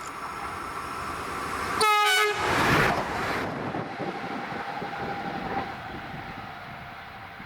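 A train sounds a short horn blast about two seconds in, then passes with a loud rush of noise and a steady whine that fades away.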